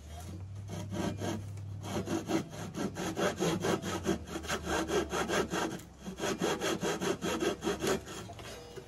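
Handsaw cutting a wooden board in quick, even back-and-forth strokes. The strokes stop a second before the end.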